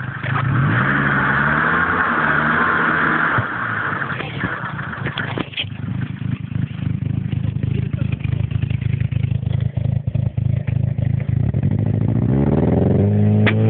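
A small vehicle engine running, its pitch climbing as it revs up about half a second in and again near the end, with scattered knocks and rattles throughout.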